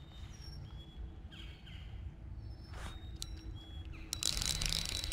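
A small bird chirping repeatedly in short falling notes. About four seconds in, a fishing reel starts cranking with a steady whir as a hooked bass is reeled in.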